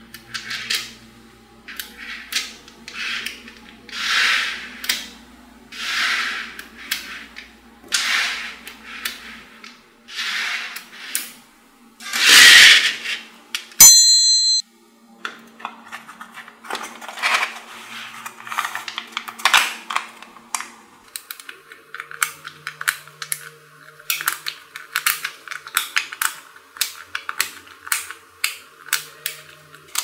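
Small metal magnetic balls clicking and clacking as they snap together into rows and are pressed into a flat sheet. Several longer rattles come in the first half, the loudest about twelve seconds in, and quick runs of sharp clicks fill the second half.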